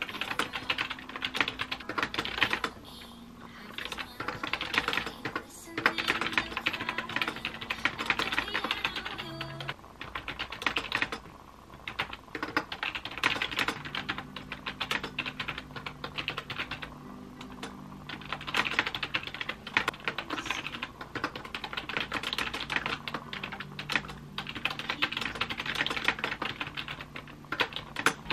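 Fast typing on a laptop keyboard: rapid key clicks in runs of a few seconds, broken by short pauses. Soft piano music plays underneath.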